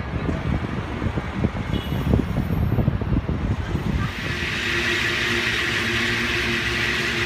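City vehicle noise: uneven low rumbling with scattered knocks, which about four seconds in gives way to a steady hiss under a low, even hum.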